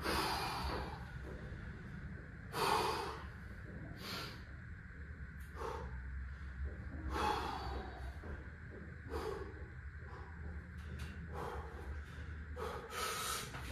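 A man breathing heavily: about half a dozen short, sharp, noisy breaths at irregular gaps of one to four seconds.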